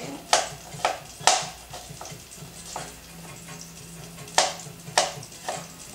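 Kitchen knife cutting a small red onion: sharp knocks of the blade hitting the cutting surface, three in the first second and a half, then a pause, then three more near the end.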